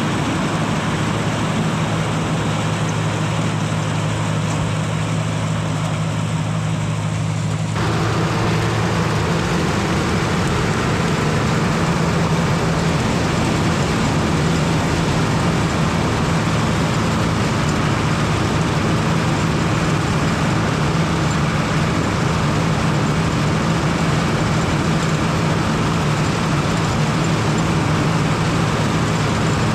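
International 686 tractor engine running steadily under load while working a New Idea corn picker, a constant hum with machine noise over it. The sound shifts abruptly about eight seconds in to a fuller, noisier mix.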